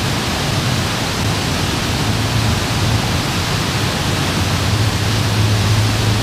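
Water of the Fountain of Wealth's large public fountain rushing and splashing steadily, as a central jet and streams from its bronze ring fall into the basin, with a low hum underneath.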